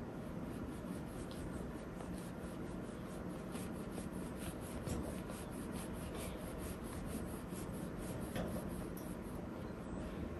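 Kitten wrestling a plush toy, its claws and paws scratching and rubbing against the fabric and the cage floor in a quick run of rasping strokes, about four or five a second, through the middle.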